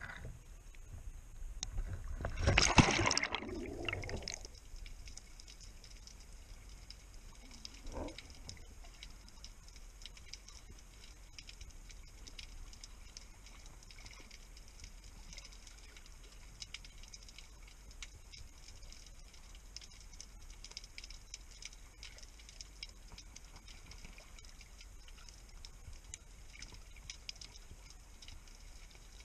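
Water splashing as a spearfisher duck-dives from the surface, about two to four seconds in, then the quiet sound of being underwater with a faint constant crackle of fine ticks. A single soft knock about eight seconds in.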